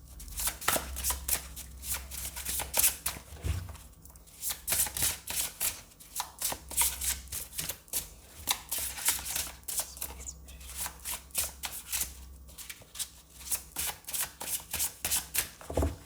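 A tarot deck being shuffled by hand: runs of quick papery flicks and snaps, broken by short pauses.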